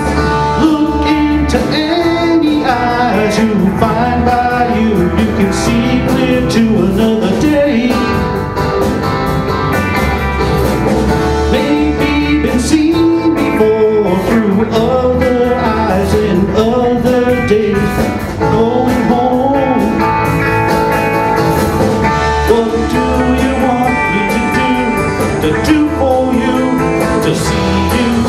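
Live rock band playing an instrumental passage on acoustic and electric guitars, bass and drums.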